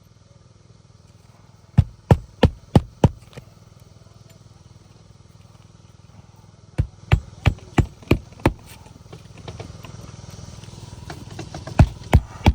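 Roofing hammer driving nails into a new asphalt shingle by hand: three runs of sharp blows at about three a second, the first of about five, the second of about six, the last of about three near the end.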